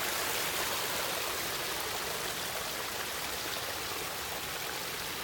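Pondless waterfall running: a steady rush of falling water.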